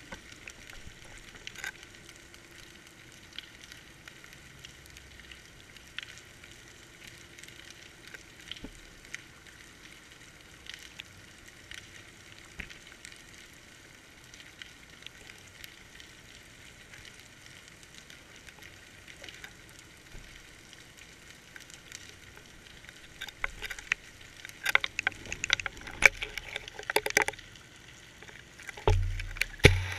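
Steady faint crackling hiss of deep water heard through a GoPro's waterproof housing, with scattered small clicks. From about three-quarters of the way through, the camera rig knocks and scrapes irregularly against the rocky bottom, with a few deep thumps near the end.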